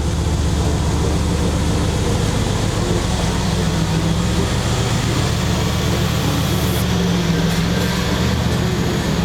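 Motor vehicle engine running steadily, a low, even rumble that starts and stops abruptly.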